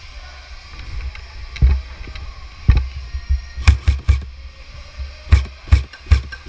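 Running footsteps of an airsoft player, heard as a steady run of thuds and crunches with the body-worn camera jolting, about three steps a second from around the middle on.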